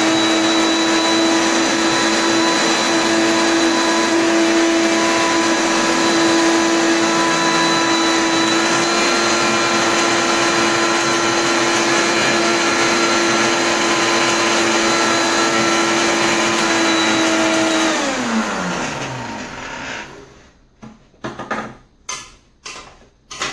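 Walita 500-watt kitchen blender running steadily on chopped parsley with no water added, switched off about 18 seconds in and winding down with a falling pitch. Several short knocks and clatters follow as the jar is opened and stirred with a spoon.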